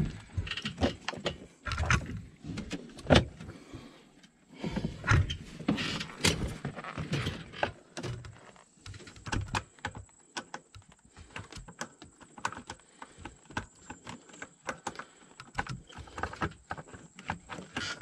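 Irregular clicks, taps and rattles of a screwdriver and plastic steering-column trim being handled on a Freightliner truck, as screws and the column's trim pieces are worked loose.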